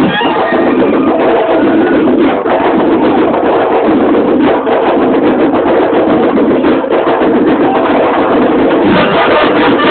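A band playing loud music with dense, steady percussion hits.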